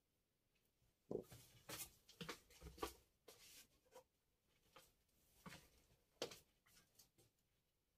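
Faint clacks and scraping of sharpening stones being handled and set down on a silicone mat, a cluster of sharper knocks about a second in and a few more scattered through.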